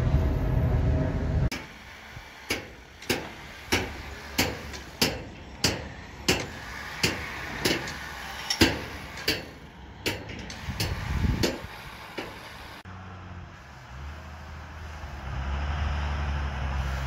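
Low rumble of a jet airliner flying overhead for the first second and a half, then a hand hammer striking concrete formwork: about fifteen sharp, ringing blows, roughly one and a half a second, stopping about eleven seconds in. A low steady rumble follows.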